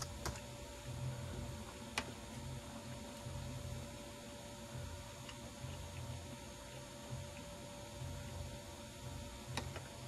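Faint steady electrical hum, with two brief clicks, about two seconds in and near the end.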